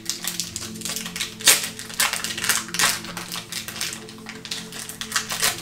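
Foil wrapper of a MetaZoo trading-card booster pack being torn and peeled open by hand, crinkling and crackling in a run of sharp rustles, loudest about a second and a half in.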